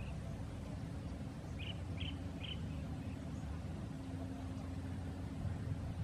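Steady low outdoor rumble, with three short high chirps in quick succession about a second and a half in, like a small bird calling.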